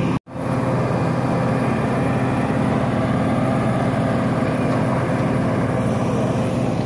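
Steady drone of engines on an airport apron at night, aircraft and ground support machinery running, with a constant low hum. The sound cuts out for an instant just after the start, then carries on unchanged.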